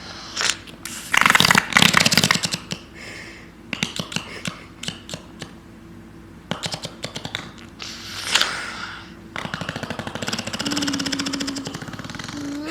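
A toddler blowing raspberries, making fart noises with the lips in several rapid fluttering bursts.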